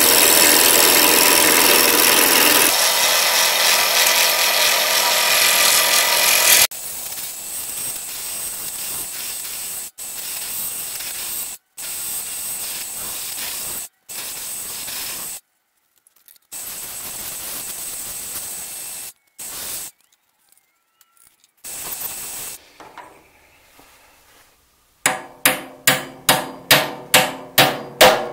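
Wood lathe spinning a pine blank while a turning tool cuts it, loud and steady at first, then quieter in short stretches broken by cuts. About three-quarters of the way in, a run of hammer taps, a little over two a second, strikes the copper ferrule end of the newly turned handle.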